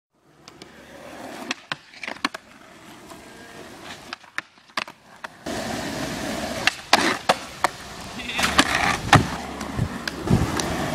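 Skateboards rolling on rough concrete, with repeated sharp clacks of boards popping and landing and a board grinding along a ledge.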